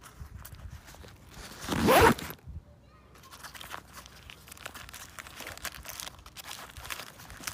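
Zipper on a nylon backpack pocket pulled open in one quick stroke about two seconds in, followed by soft rustling of the fabric and a snack-bar wrapper as a hand reaches into the pocket.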